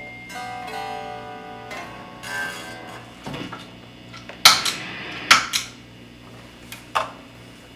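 Electric guitar played through a Mojotone British 800 kit tube amp, a JCM800-style build. A few notes ring out and fade in the first two seconds over a steady amp hum. Three sharp clanks in the second half are the loudest sounds.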